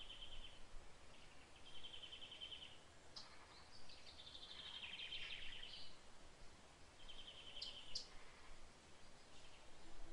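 A songbird singing faintly: a short rapid trill of about a second, repeated every two to three seconds, with a longer, busier phrase in the middle and a couple of sharp high chirps, over a steady faint background hiss.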